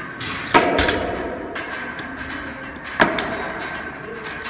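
Weight plates being loaded onto a barbell sleeve: a grey metal plate knocks against the bar and a black bumper plate. There are two sharp metallic clanks, about half a second in and again about three seconds in, the second the louder, each ringing briefly.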